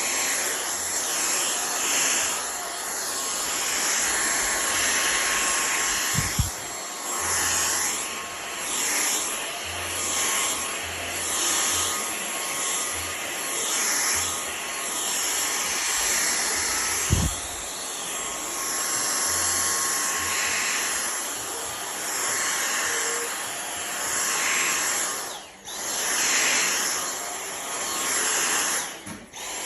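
An electric air-moving appliance, a vacuum cleaner or hair dryer, running steadily with a loud rushing of air. Its loudness swells and fades every second or two. It drops out briefly twice near the end, and there are two soft knocks along the way.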